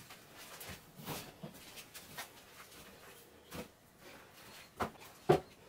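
A mostly quiet small room with a few brief knocks, two of them close together near the end.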